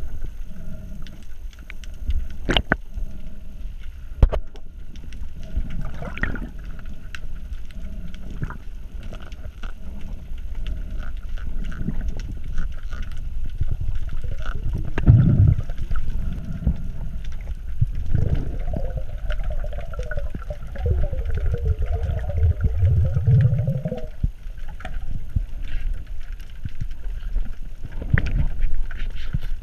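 Underwater water noise picked up by a GoPro in its housing: a steady low rumble with scattered clicks. Past the middle comes a denser, churning stretch that lasts several seconds.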